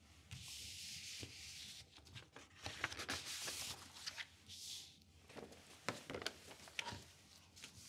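Paper rustling and sliding as sheets are drawn out of a manila envelope and set down on a desk: several soft swishes, each about a second long, with small taps and clicks between them.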